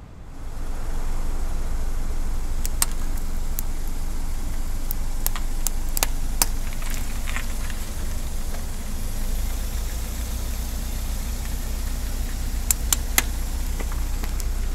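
Car rolling slowly on asphalt: a steady low engine and tyre rumble that starts about half a second in, with scattered sharp clicks and crackles, the last cluster near the end as the tyre rolls onto a squishy rubber toy.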